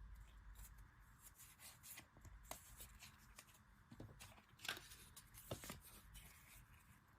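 Faint crinkling and rustling of paper and plastic packaging being handled, with irregular small clicks and crackles that are sharpest a little before five seconds in and again about half a second later.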